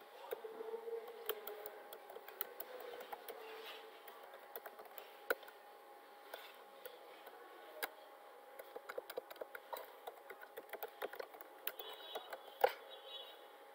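Computer keyboard being typed on: irregular runs of key clicks, with one louder stroke near the end, over a faint steady hum.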